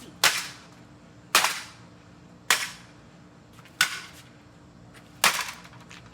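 Five sharp cracks of a bat striking a plastic RC boat hull, evenly spaced about a second apart.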